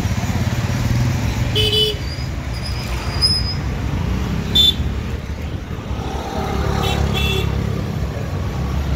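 Street traffic: a steady low rumble of passing vehicles, with brief vehicle horn beeps cutting through a few times, the loudest about halfway through.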